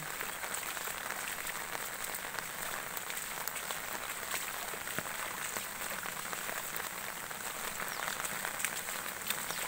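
Muddy rainwater runoff flowing down a street after rain: a steady splashing hiss scattered with small ticks.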